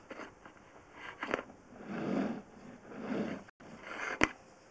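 Scraping and rubbing with a few sharp knocks as a drain inspection camera's push rod is pulled back through the pipe.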